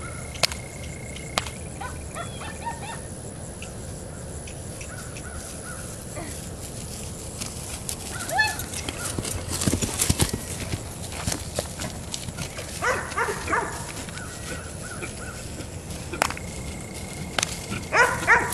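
A dog barking in two quick runs of several barks, one about two-thirds of the way in and one near the end, over steady outdoor background noise. A few single sharp cracks are heard as well.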